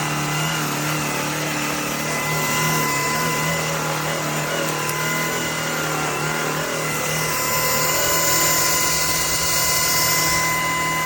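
Shark PowerPro cordless stick vacuum running steadily: a high motor whine over a rushing airflow hiss that swells for a few seconds near the end.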